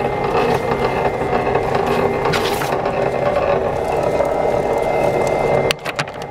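Electric wire stripping machine running with a piece of wire being fed through its rollers and cutter: a steady mechanical whir with a scraping rattle and a thin whine. Near the end the noise drops off suddenly, with a few clicks.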